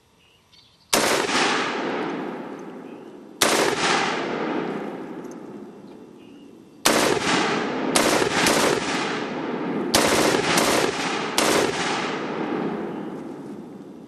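German MG-34 belt-fed machine gun, 7.92×57mm Mauser, firing fully automatic in short bursts: one about a second in, another about three and a half seconds in, then a quick string of short bursts from about seven seconds on. Each burst is followed by a long echo that fades away.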